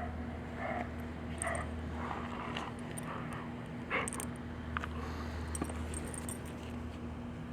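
A labradoodle sniffing and snuffling close to the microphone in a few short bursts, over a steady low hum.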